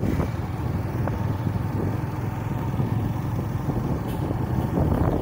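Steady low rumble of road vehicle engines on the move, following a truck loaded high with cut sugarcane.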